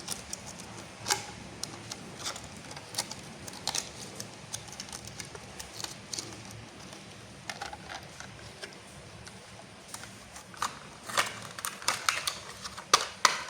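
Hard plastic toy parts being handled and fitted together: scattered sharp clicks and rattles, coming thicker and louder in the last couple of seconds.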